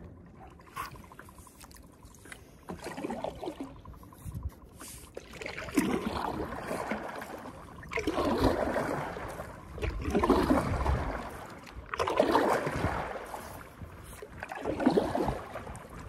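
Stand-up paddleboard paddle strokes in river water: after a few light knocks, a splashing stroke about every two seconds from about five seconds in.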